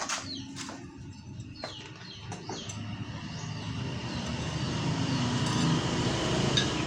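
A low, steady machine-like hum that grows gradually louder, with birds chirping over it and a few sharp clicks at the very start.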